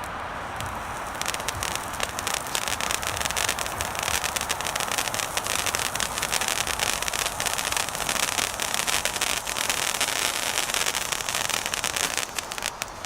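Gold crackling fountain firework burning: a steady hiss, then from about a second in a dense, continuous crackle of many small pops that dies away shortly before the end.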